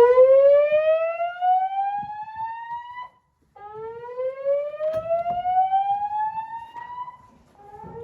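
Fire alarm voice-evacuation speakers sounding the slow-whoop evacuation tone: loud upward sweeps in pitch, each climbing for about three and a half seconds and then breaking off briefly before the next begins.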